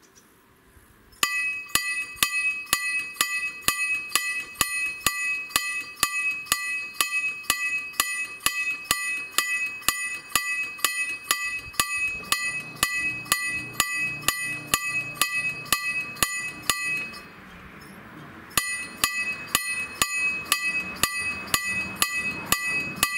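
Level crossing warning bell starting about a second in, struck a few times a second in an even, ringing rhythm. It pauses briefly near the three-quarter mark, then resumes. A low motor hum sits under it in the second half while the barrier arms come down.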